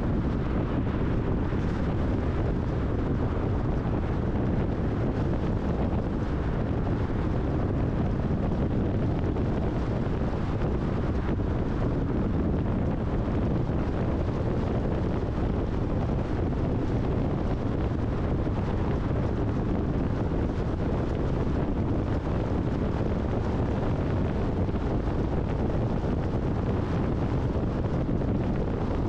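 Steady road and wind noise from a car cruising at highway speed, with wind buffeting the camera's microphone. It is a low, even rumble that does not change.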